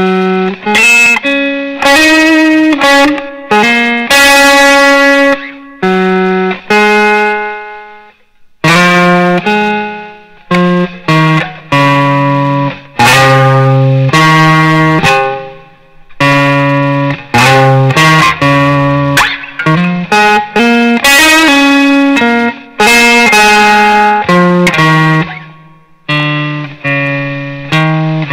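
Electric guitar played through a small combo amplifier: picked chords and single notes, each struck sharply and left to ring and decay, in short phrases with brief gaps between them.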